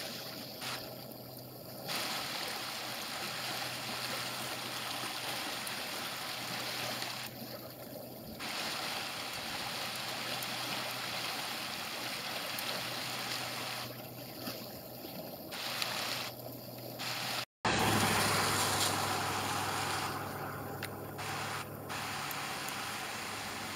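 Creek water rushing and gurgling through an open gap in thin ice, a steady noise. It cuts out for an instant about two-thirds through and comes back louder.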